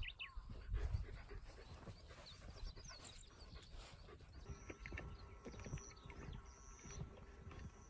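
Faint, scattered twittering calls of African wild dogs over a low rumble that is strongest in the first second.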